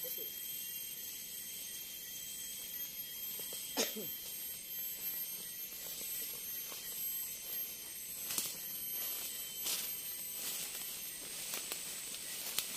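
Steady high-pitched chorus of forest insects, with a few scattered clicks and a brief falling sound about four seconds in.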